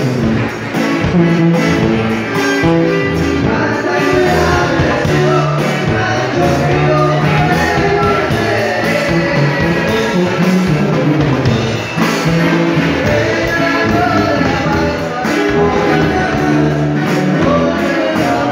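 Loud Latin dance music with singing, played over a large speaker system, with a steady bass-and-drum beat.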